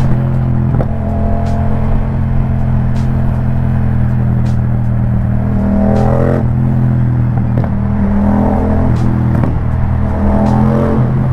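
Yamaha MT-07's parallel-twin engine breathing through a full Akrapovic exhaust system, running steadily with the revs rising and falling three times, about halfway through, around two-thirds through and near the end.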